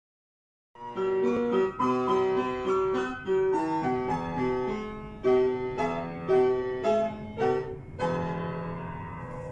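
Background music with a piano-like keyboard melody of distinct notes, starting suddenly about a second in.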